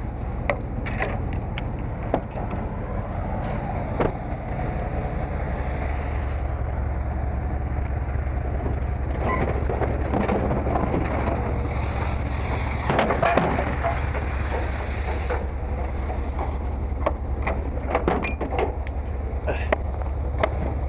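A steady low hum with scattered knocks and metallic clatter, busiest about twelve to fifteen seconds in.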